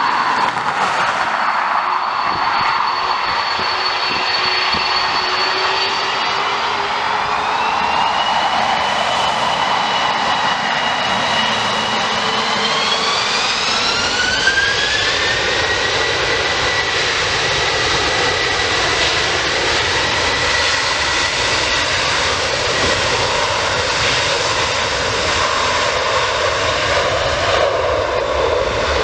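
Airbus A330-300's twin jet engines spooling up for takeoff: the engine whine rises in pitch in two steps, about a quarter of the way in and again near the middle, then holds steady under a constant jet noise as the airliner accelerates down the runway.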